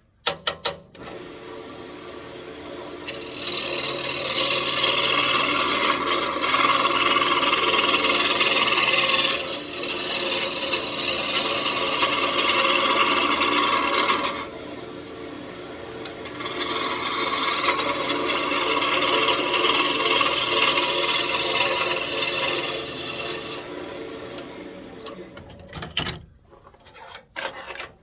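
Wood lathe running with a turning tool cutting into a spinning walnut blank: a loud, steady scraping hiss over the motor's hum, in two long cuts with a short break between. Near the end the cutting stops and the lathe winds down.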